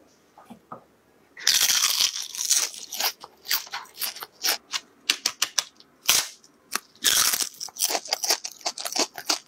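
Crisp deep-fried rice paper crunching and crackling as it is broken apart: a dense run of sharp crackles and snaps beginning about one and a half seconds in.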